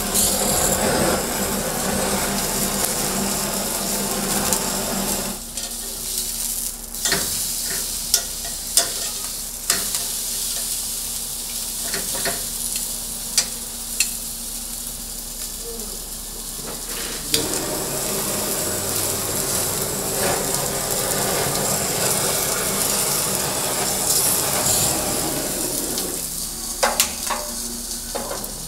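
Beef steak sizzling on a hot cooking surface, a steady hiss that swells and eases, with a few sharp clicks and knocks of handling in between.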